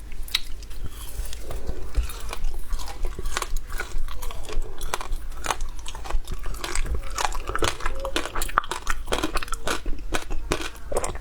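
Passion fruit shaved ice being bitten and chewed, with many crisp crunches in quick, irregular succession.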